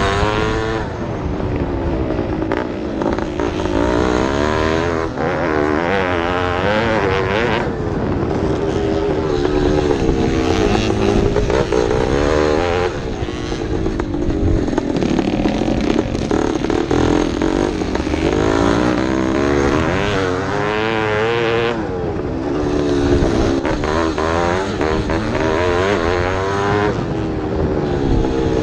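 Vintage racing motorcycle engines revving hard, their pitch repeatedly climbing and then dropping.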